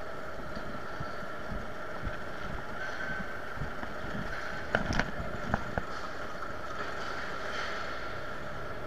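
Steady mechanical drone of baggage-hall machinery, holding two even tones, with a few sharp knocks and clicks about halfway through.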